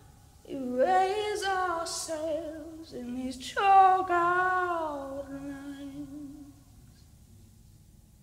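A woman's voice singing unaccompanied: two long, wavering vocal runs, the second louder and sliding down in pitch, that close the song and die away about two-thirds of the way through.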